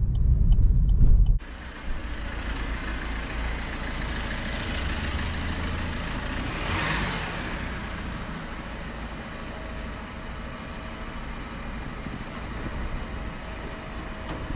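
A loud low rumble that cuts off suddenly about a second and a half in, then steady road-traffic noise, with a vehicle passing by about seven seconds in.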